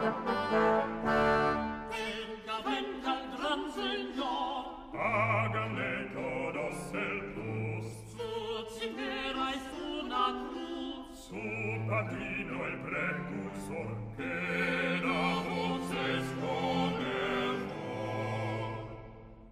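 A small group of voices singing sixteenth-century Spanish polyphony (an ensalada) in several parts with vibrato, phrase after phrase with short breaks between them.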